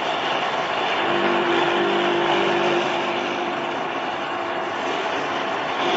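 JMSC-80 stainless-steel colloid mill running under load, grinding fresh chilis into paste: a steady, loud mechanical whir, with a hum that comes in about a second in and weakens later on.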